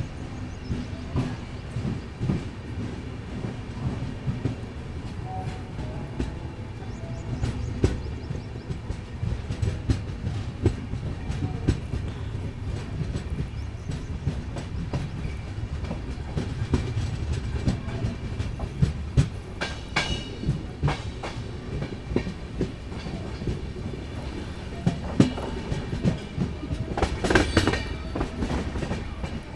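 Indian Railways passenger coach rolling out of a station and gathering speed: a steady rumble with the wheels clicking over rail joints. Twice, once past the middle and again near the end, a denser clatter comes as the wheels cross the points.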